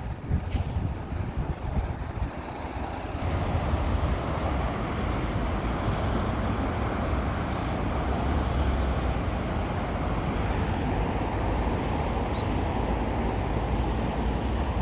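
Road traffic on the national road overhead: a steady wash of passing vehicles that swells about three seconds in and then holds.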